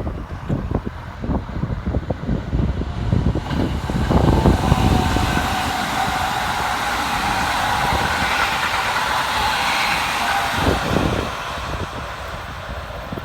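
Keikyu electric train passing on the line. Its running noise swells about four seconds in, with a steady tone over it, and eases off after about ten seconds.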